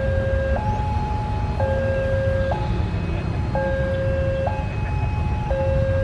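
Railway level-crossing warning alarm sounding a two-tone signal, a lower and a higher tone alternating about once a second, warning of an approaching train, over a low rumble.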